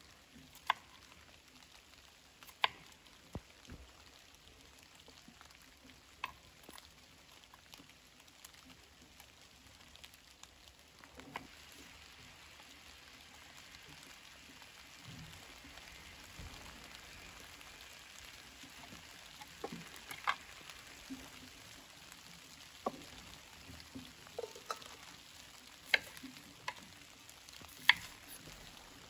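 Kitchen knife slicing vegetables on a wooden cutting board: scattered single sharp knocks a few seconds apart, coming more often near the end. Under them is a steady faint hiss of light rain, growing a little fuller about halfway through.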